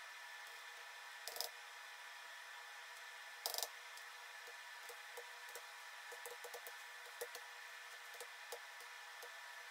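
Faint keystrokes on a computer keyboard as hex machine code is typed in by hand: two louder key clacks in the first few seconds, then a run of light, irregular taps over the second half, over a steady low hiss.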